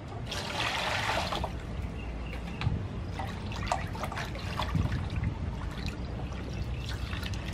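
Water poured from a plastic scoop into a metal basin of squid for about a second, then hands swishing and rubbing the squid in the water with small splashes.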